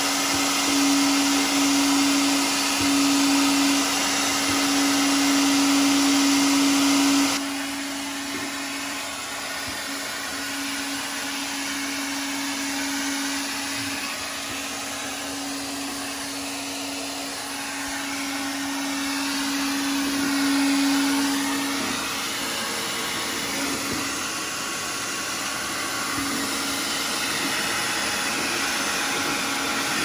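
Hand-held hair dryer running steadily, a whirring blow with a steady motor hum, aimed at ice on a frozen-over freezer defrost drain to melt it open. About seven seconds in it turns quieter and less hissy, and the hum fades out later on.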